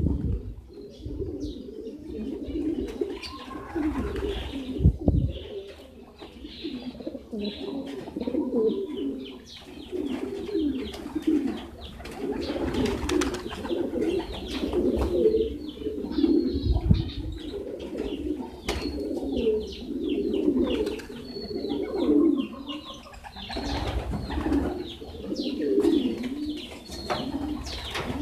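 A group of racing pigeons cooing steadily, many coos overlapping, over a patter of small clicks from beaks pecking grain off concrete.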